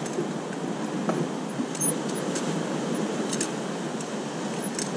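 Steady wash of surf and wind noise on the microphone, with a few small clinks and rustles of dive gear being handled.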